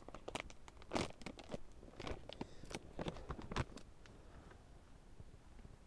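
Irregular crunching and clicking handling sounds, like something being set down and shifted on packed snow, for about the first three and a half seconds, then it goes much quieter.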